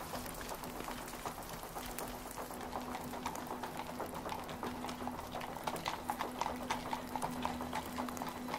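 Racehorse hoofbeats on a wet, muddy dirt track: many quick, irregular wet clops and splats, over a steady low hum.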